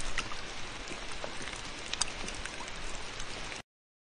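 A recorded rain sound effect playing back: a steady hiss of rain with scattered sharp drop ticks. It cuts off abruptly about three and a half seconds in, as the preview ends.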